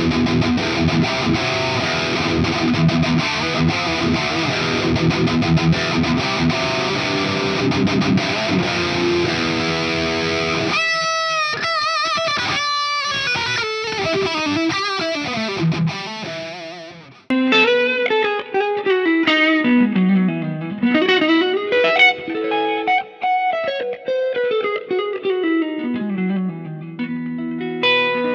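Soloking MS-1 Custom 22 HSS electric guitar played through a Hotone Ampero II multi-effects unit. For about ten seconds it plays dense distorted rhythm. Then come separate ringing notes, and after a short drop about seventeen seconds in, a lead line with bent and sliding notes that ends on a held chord.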